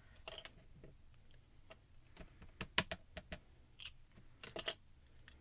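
Light, scattered clicks and taps of a small plastic ink pad and clear stamps being handled on the stamping tool, with a quick run of taps about two and a half seconds in.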